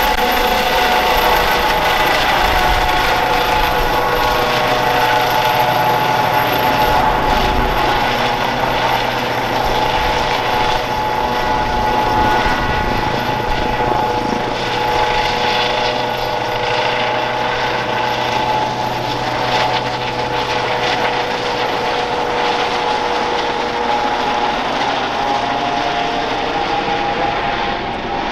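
Airbus H135 P3 helicopter climbing away after take-off, its twin Pratt & Whitney PW206B3 turboshaft engines and rotors running at take-off power: a steady whine over rotor noise. The high-pitched part fades a little as it moves off.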